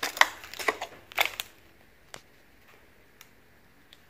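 Footsteps crunching on debris on a concrete floor: a handful of sharp crunches in the first second and a half, then only a few faint scattered ticks.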